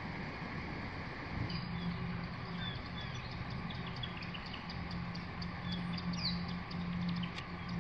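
Small birds chirping in short, scattered calls over a steady outdoor background hiss, with a low steady hum coming and going from about a second and a half in.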